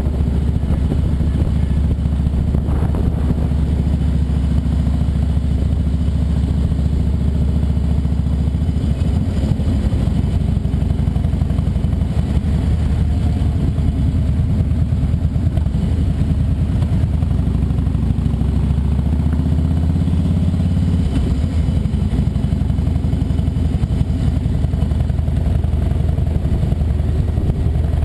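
Motorcycle engine running steadily, a low continuous rumble whose pitch shifts slightly about twenty seconds in.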